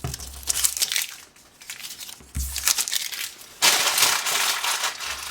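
Freshly sharpened 154CM blade of a Gerber Gator folding knife slicing through paper in a sharpness test. Several short cuts come first, then a longer, louder slice about three and a half seconds in.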